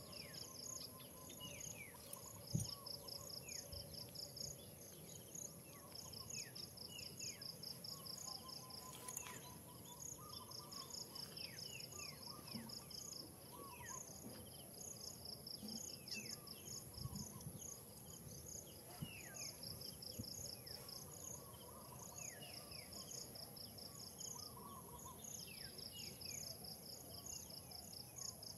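Faint forest ambience: a steady high insect drone with rhythmic pulsing insect trills, and many short falling chirps scattered throughout. A single sharp thump about two and a half seconds in.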